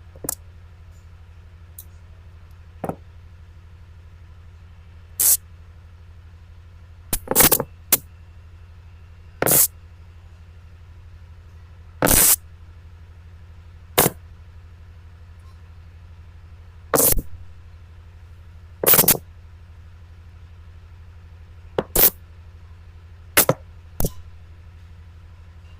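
Magnets snapping together, about a dozen sharp clacks at irregular intervals, a few in quick pairs, over a steady low hum.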